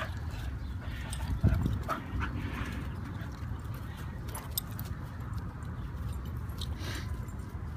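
Two young golden retrievers at rough play, with a loud thump about a second and a half in and a short dog vocalization just after, over a steady low rumble.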